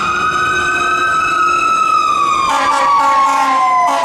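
Fire engine siren wailing, several tones rising and falling slowly over one another. About two and a half seconds in, a lower steady tone with a hiss joins it.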